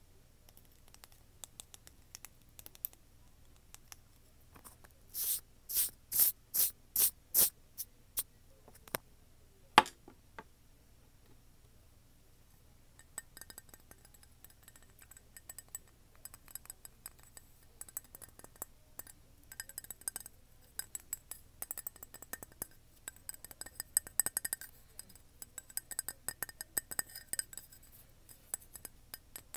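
Light tapping and clinking with a faint ring. There is a run of six short swishes about five seconds in and a sharp click near ten seconds, then rapid small taps and clicks from about thirteen seconds on.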